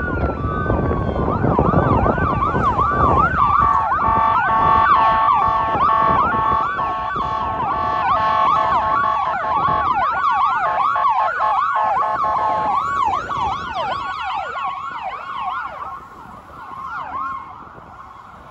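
Electronic siren of a 2021 Ford F-450 Horton ambulance running emergency: a slow wail at first, then a fast yelp sweeping about three times a second with a steady tone held under it for several seconds. Engine and road rumble in the first few seconds, and the siren fades in the last few seconds as the ambulance passes and moves away.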